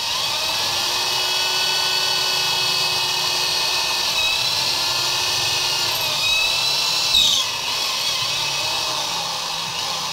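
Electric drill boring a hole through a rusty steel bar, the motor whining steadily. Its pitch sags and recovers a couple of times as the bit bites, with a brief louder screech about seven seconds in, and the sound tapers off near the end.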